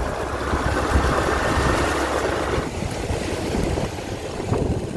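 A vehicle running along the road: a steady engine rumble with road noise. The higher hiss drops away about two and a half seconds in.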